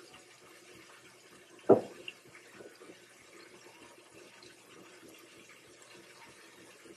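Chopped steak patties frying in shallow oil in a stainless steel pan: a steady low sizzle with faint crackling. One brief louder sound comes about two seconds in.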